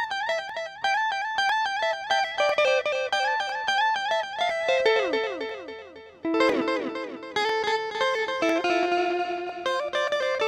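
Electric guitar played through a Zoom G1X ON multi-effects pedal with delay: a quick picked single-note chicha-style melody, with slides down in pitch around the middle and longer held notes near the end.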